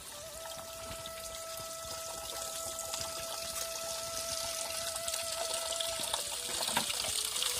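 Spring water trickling and dripping down a mossy rock face and over stones, growing louder towards the end. A thin steady tone is held over it until about six seconds in.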